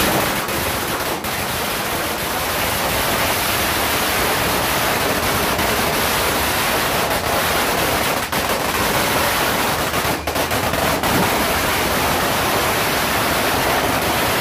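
Conde 'sawa' firecracker belt of 2,000 small crackers going off in a dense, unbroken rapid crackle at a steady level.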